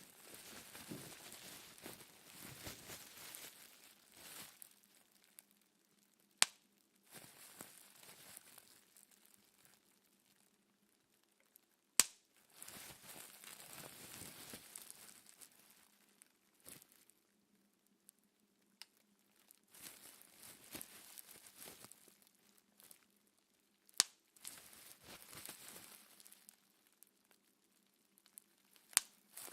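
Plastic bubble wrap being handled and popped. Crinkling stretches are broken by sharp single pops every few seconds, four of them much louder than the rest.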